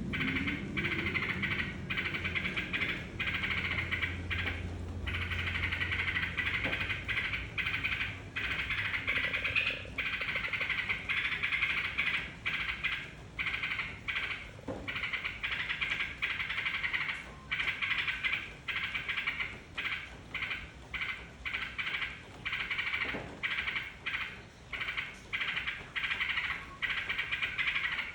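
Sooty-headed bulbul (trucukan) song played as a lure recording: dense chattering phrases one after another, broken by short gaps that come more often in the second half.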